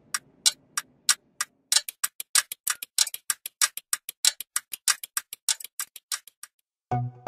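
Clock ticking as a sound effect, with sharp even ticks about three a second. From about two seconds in they speed up to roughly twice as fast, then die away. Music with a deep bass starts just before the end.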